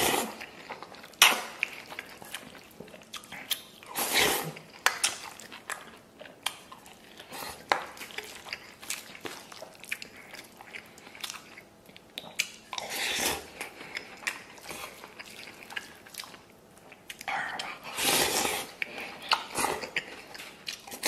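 Close-miked eating: slurping noodles and chewing sauced rice, with a spoon clicking and scraping against a stainless steel bowl. The loudest slurping comes in three stretches, about four, thirteen and eighteen seconds in.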